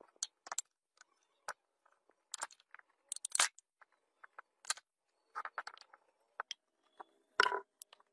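Scattered clicks, scrapes and knocks from hand work on parts, irregular and short, with a louder, heavier knock near the end.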